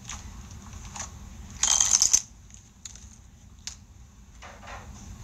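Packaging crinkling and rustling in the hands, with a loud burst of crinkling about two seconds in, followed by a few small clicks and softer rustles.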